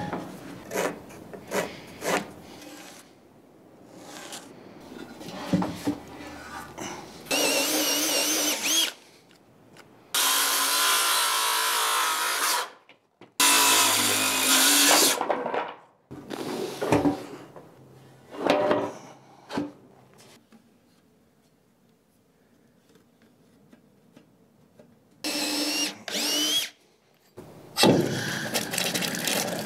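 Handheld power drill run in short bursts of one to three seconds, its motor pitch wavering under load, with knocks and clatter of parts being handled between the bursts. A steady hiss sets in near the end.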